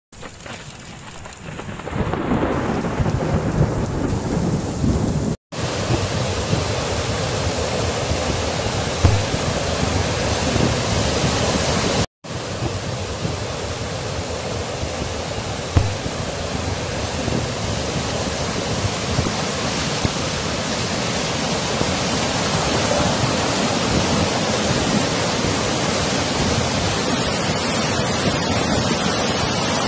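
Thunderstorm: a heavy, steady downpour of rain with thunder, swelling up over the first two seconds, with a couple of deeper thumps of thunder. The sound drops out for an instant twice.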